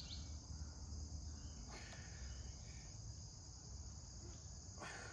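Steady high-pitched chorus of crickets and other insects over a low outdoor rumble, with two faint knocks, one about two seconds in and one near the end.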